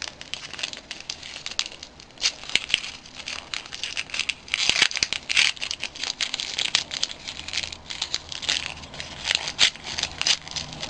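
Gift wrapping crinkling and tearing as a small wrapped package is unwrapped by hand, in irregular crackly bursts.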